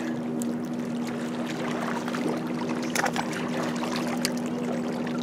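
A steady motor drone holding one even pitch, with a few short clicks and knocks about two to three seconds in.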